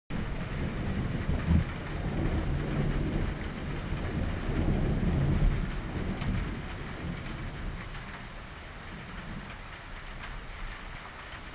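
Thunder rolling in a long low rumble that swells twice and fades away about two-thirds of the way through, over a steady hiss of rain.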